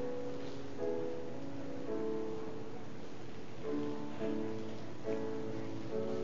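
Slow, gentle instrumental music: held notes that change about once a second.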